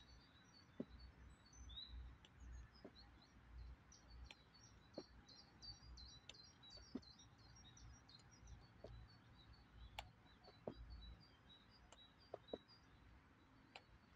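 Small birds chirping and twittering over a low rumble, with a sharp tap every second or two as forearm crutch tips are set down on concrete steps.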